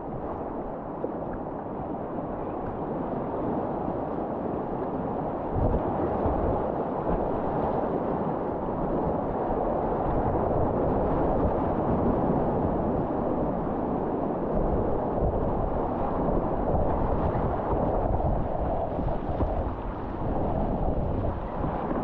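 River whitewater rushing through a rapid, a steady loud rush heard from a kayak, with irregular low buffeting on the action camera's microphone.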